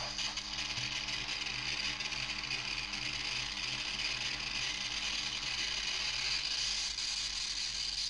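Muscarin DIY analog noise synthesizer putting out a steady, dense hissing noise texture with a rapid clicking grain running through it.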